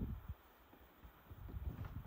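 Dull, low thuds: a run of them fades out just after the start, and a softer cluster follows about a second and a half in.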